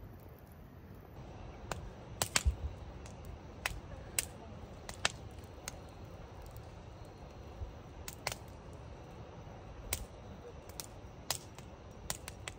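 Wood campfire in a metal fire bowl crackling, with irregular sharp pops throughout and a cluster of louder ones about two seconds in, over a low rumble.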